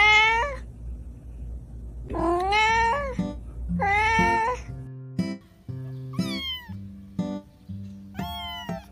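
Cat meowing: three long meows that rise then fall in the first half, then shorter, higher-pitched meows that drop in pitch later on. Background music with a steady plucked beat runs underneath.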